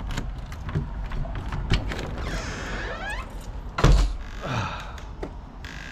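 A front door being opened by its lever handle: small clicks and rattles from the latch and lock, a few squeaks, and one loud thunk just before four seconds in as the door comes open.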